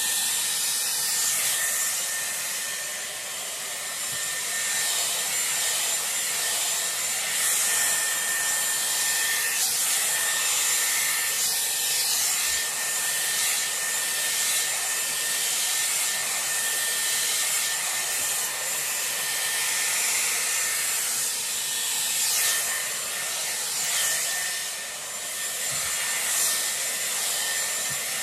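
Dyson Airwrap with its round brush attachment blowing air while it is worked through the hair: a steady rush of air with a thin high whine, dipping briefly twice.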